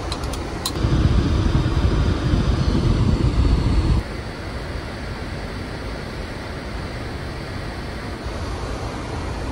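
Steady rush of airflow and engine noise inside an airliner cockpit in flight. It holds a deep rumble for the first few seconds, then drops to a lighter, even hiss about four seconds in. A few sharp clicks come right at the start.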